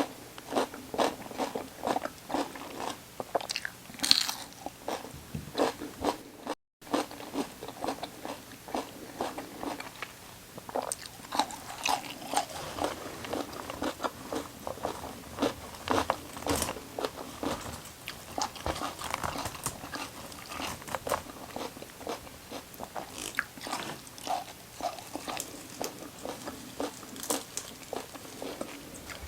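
Close-miked crunching and chewing of raw vegetables: crisp bites and chews a few times a second. A brief cut to silence comes about seven seconds in.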